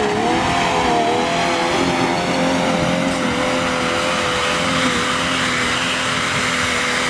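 Jeep Cherokee XJ engine held at high revs as it climbs a steep, loose dirt slope, wheels spinning. Its pitch wavers for the first second or so, then holds steady.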